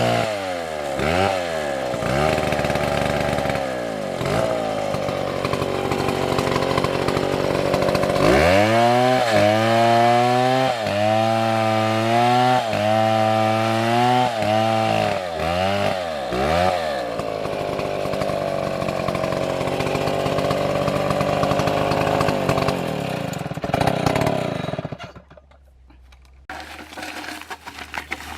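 Stihl two-stroke chainsaw cutting wood, its engine pitch rising and dipping again and again as the chain loads in the cut, with a steadier run in the second half. The saw cuts off about 25 seconds in.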